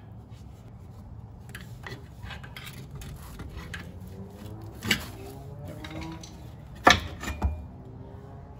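Scattered metal clinks and knocks of a wrench and bolt at the lower mount of a Jeep TJ's rear shock absorber as the old shock is worked free, with two louder knocks in the second half.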